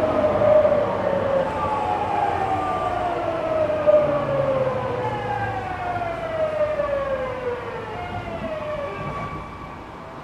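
Tokyu 9000 series train's GTO-VVVF inverter whine heard from inside the car, in several falling tones, one after another, over the rumble of the running train, as the train brakes. The sound fades down near the end.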